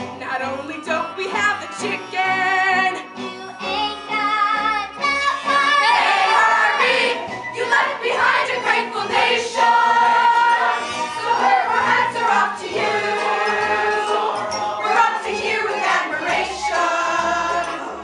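A chorus of voices singing a show tune over instrumental accompaniment.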